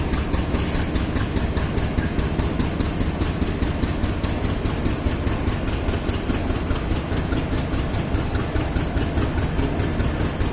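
GE WDG4G diesel-electric locomotive's 12-cylinder GEVO engine idling, a steady low running sound with a fast, even pulsing on top, an idle sound the uploader calls weird.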